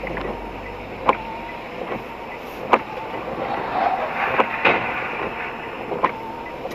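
Steady road and tyre noise on a wet road, heard inside a moving car through a dashcam's microphone. Sharp clicks come every second and a half or so, in step with the windscreen wiper sweeping the glass.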